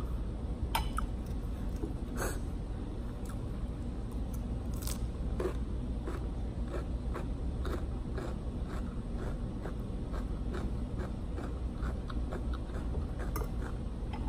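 Close-up chewing and crunching of cucumber salad with ramen noodles, a crunch every half second or so, with a few sharper clicks of a metal fork against the plate.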